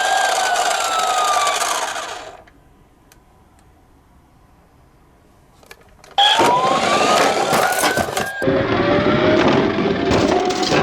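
Toy emergency-vehicle siren wailing up and down over rattling, cutting off about two seconds in. After a few quieter seconds another siren wail starts with loud clattering and sharp clicks, and a second, lower siren climbs slowly near the end.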